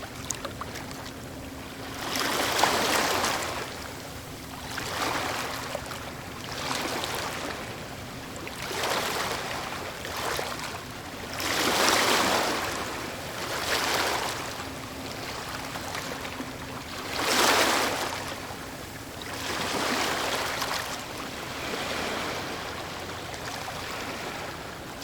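Medium waves breaking and washing on a shore, recorded close: a wash of surf every two to three seconds, rising and fading, with a few louder breakers among them.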